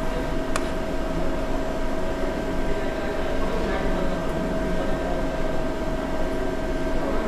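Steady hum of a CNC turning lathe running at rest, with a constant mid-pitched whine over it, and a single faint click about half a second in.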